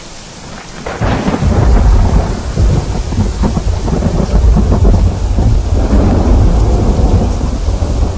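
Thunder over steady rain: a long roll begins about a second in and keeps rumbling, loud and deep, over the hiss of the rain.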